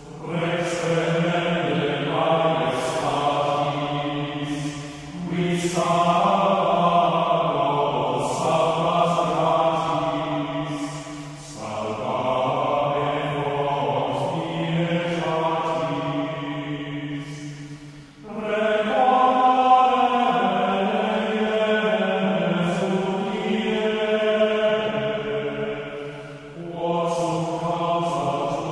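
Background music of slow vocal chant, sung in long held phrases with short breaks between them.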